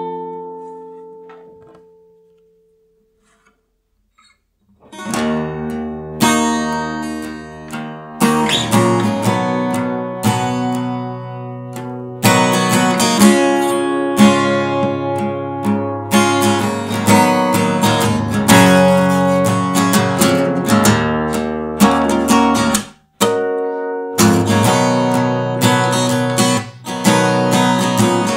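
Acoustic guitar music. A held chord fades away, then after a short pause strummed and picked guitar starts about five seconds in and carries on, with a brief break a few seconds before the end.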